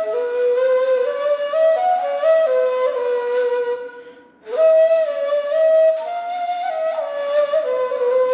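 Ney, the Turkish end-blown reed flute, playing a slow melody of held notes that step up and down. A little past the middle the tone fades out for a breath, then returns with a short upward slide into the next note.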